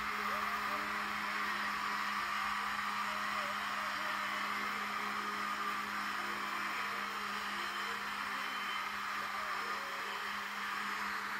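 Steady whirring noise with a constant low hum underneath.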